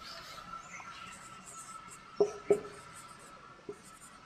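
Marker pen writing on a whiteboard, with two sharp taps a little over two seconds in and a lighter one near the end. A faint steady high tone runs underneath.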